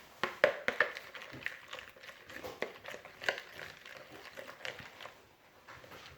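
Slime mixture being stirred in a bowl after the activator has gone in: irregular clicks, taps and scrapes of the utensil, thinning out near the end.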